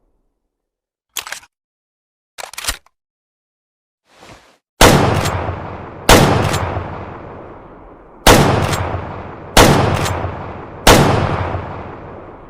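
Remington Model 7600 pump-action rifle: a few short mechanical clicks of the action, then five loud shots about a second or two apart, each with a long echoing tail.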